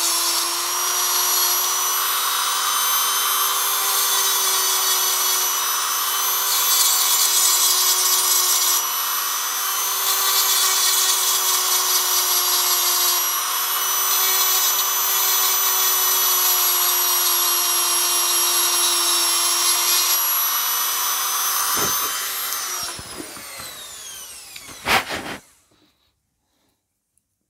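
A small handheld power tool running with a steady high whine, then switched off about 22 seconds in, its pitch falling as it winds down, followed by a short sharp knock.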